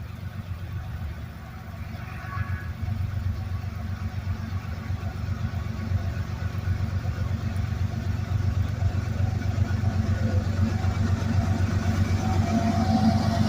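Diesel-electric locomotive of an approaching freight train, a GE ES44AC in the lead, its engine giving a low steady rumble that grows gradually louder as it nears.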